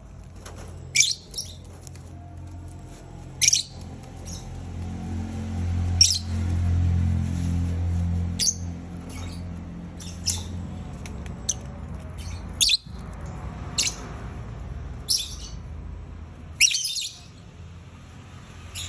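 Lovebirds giving short, sharp squawking chirps, about a dozen spaced irregularly a second or two apart. A low steady hum runs underneath and swells for a few seconds midway.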